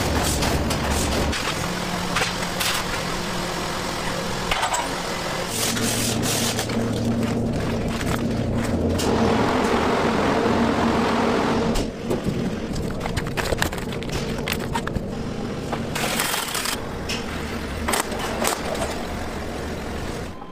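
Food-factory machinery running, with steady hum and frequent clicks, knocks and clatter of pouches and equipment. A louder rushing noise swells in the middle, as steam billows from a processing chamber.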